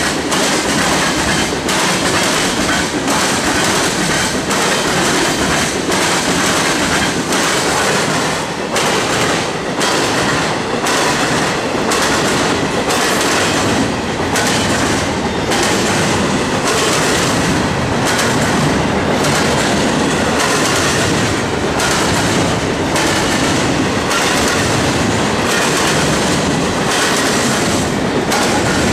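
Loud, steady rolling rush of a long freight train passing, with a regular clickety-clack of wheels crossing rail joints. The cars are refrigerated boxcars, then double-stack container well cars.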